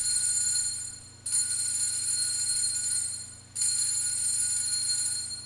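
Altar bell rung at the elevation of the chalice during the consecration: high-pitched metallic ringing, struck again about a second in and again past halfway, each ring hanging on before fading.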